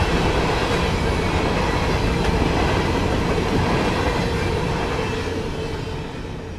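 Norfolk Southern freight train rolling past, its cars' wheels clattering steadily on the rails with a faint ringing tone above the rumble. It begins to fade away near the end.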